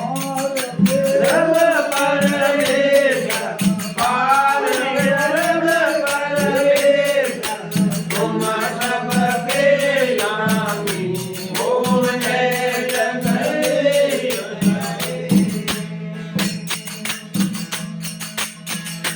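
A male folk singer singing a Rajasthani devotional aarti over a steady drone and constant jingling metal percussion. The voice stops about 15 seconds in, leaving the drone and the jingling percussion.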